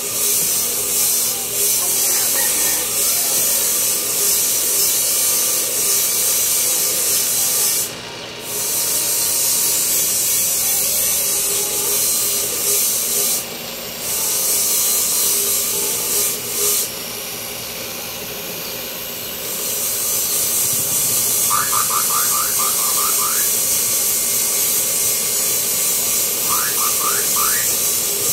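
Power tool grinding steadily, lifted off the work briefly a few times and running lighter for a few seconds midway. Two short runs of quick rising chirps come through near the end.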